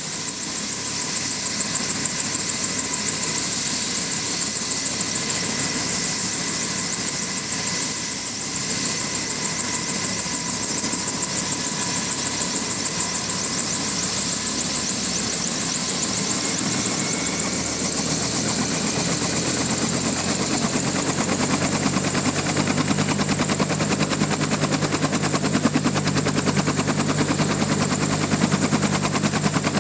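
Helicopter running: a high turbine whine over the fast, even chop of the rotor blades. From about seventeen seconds in, a deeper rotor throb comes in and grows stronger.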